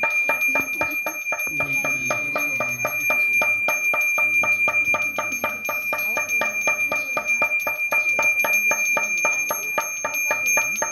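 Small hand bell, a Balinese priest's genta, rung continuously with rapid, even strokes, several a second, over a steady clear ring.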